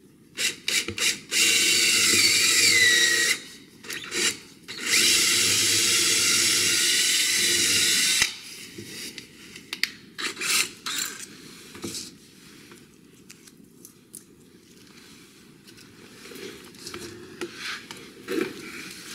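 Cordless drill boring into a wooden board: a few short trigger blips, then two runs of about two and three and a half seconds, the motor's pitch dipping partway through the first. After that, scattered light clicks and knocks as the drill and bit are handled.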